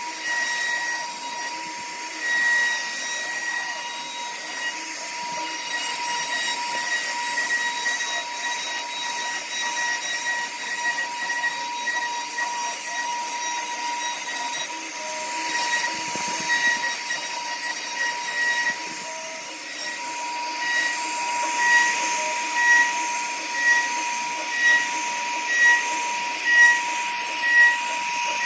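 CNC router spindle running with a steady high whine as the bit cuts wood. Near the end the sound swells and falls about once a second.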